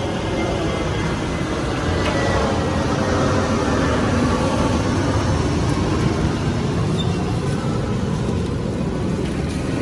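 Steady street traffic noise with engines running, swelling a little through the middle.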